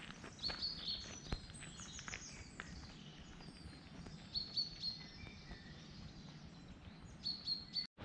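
Small birds singing in woodland: short, high chirps and trills in several separate phrases over faint background hiss.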